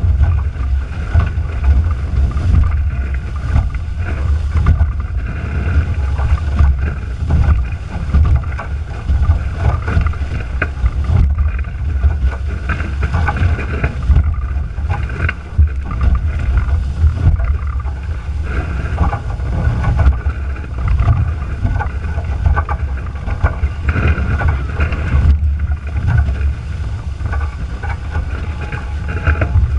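F18 sailing catamaran running fast through chop: heavy wind rumble on the boat-mounted camera's microphone over the rush and hiss of the hulls and spray cutting through the water. The sound is loud and continuous, rising and falling with the gusts and waves.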